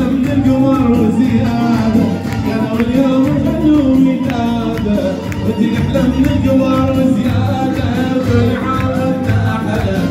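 Music over a PA system with a man singing into a microphone, over a steady beat.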